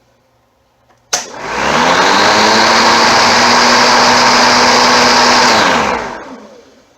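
Battery-powered Homelite electric lawn mower, running on a lithium A123 26650 pack: a sharp click as it is switched on, the motor and blade spinning up quickly to a steady high whine, then switched off and winding down with a falling pitch.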